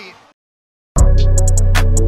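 Sound fades out to dead silence, then a music track starts abruptly about halfway through, with heavy bass and a quick, sharp beat.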